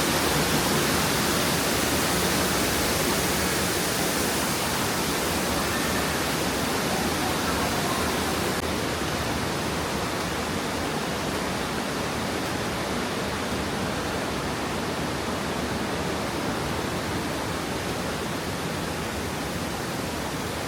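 Steady rushing of falling water, an even roar with no breaks that slowly grows quieter.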